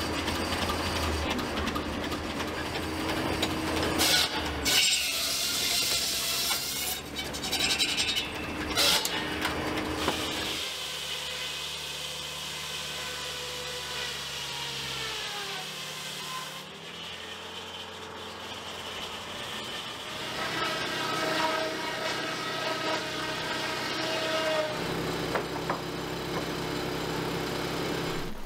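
Old sawmill machinery running, with a large circular saw blade whining, its pitch sagging and recovering as it cuts. Loud noisy bursts come about 4 and 9 seconds in.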